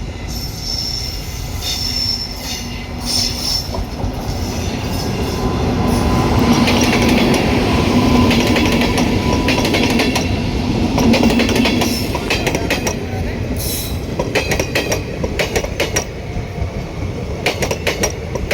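Passenger train pulling out and rolling past: a steady rumble of the coaches with a drawn-out wheel squeal in the middle, then wheels clicking over rail joints in the last few seconds.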